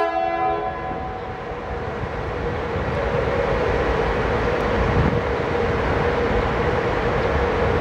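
Horn of a CFR Class 41 (EA1) electric locomotive ending in the first second, then the locomotive's steady running sound, a held tone over a low rumble, growing slightly louder as it pulls away with its coaches.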